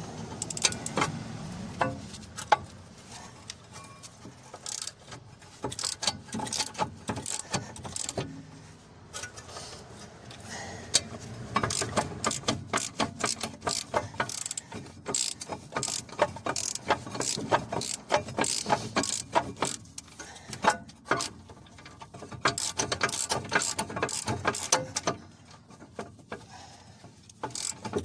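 Hand ratchet wrench clicking in quick runs of strokes, with short pauses between, as bolts on the brake assembly are turned.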